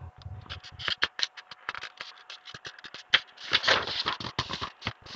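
Paper pages of a picture book being handled and turned: irregular rustling, crackling and scratchy clicks, loudest about three and a half to five seconds in.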